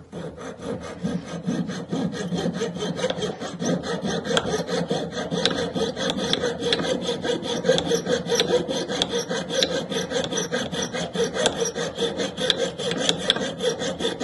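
Jeweller's saw cutting through silver wire, with a steady rhythm of quick, even rasping strokes.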